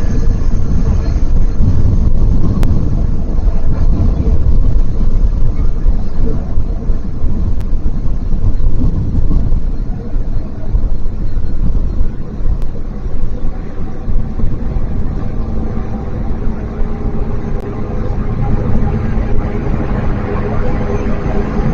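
Jet airliner engines running at an airport, a loud steady rumble that eases about halfway through, leaving a steady hum.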